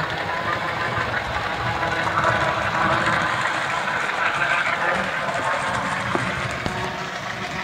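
HO-scale model train running on sectional track: the small locomotive's electric motor whirring, with the wheels of the engine and boxcars rattling over the rails. It is a little louder in the middle, with a few faint clicks near the end.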